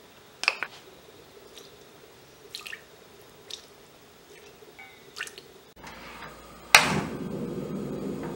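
A few separate spoonfuls of minced ginger and water dropping onto chili paste in a pot, making soft drips and plops. Near the end a gas stove burner lights with a sharp pop and then burns with a steady rushing sound.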